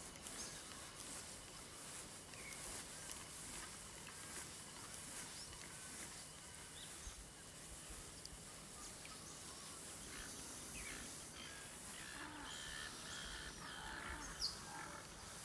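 Quiet outdoor ambience with faint, scattered bird calls, which grow busier near the end.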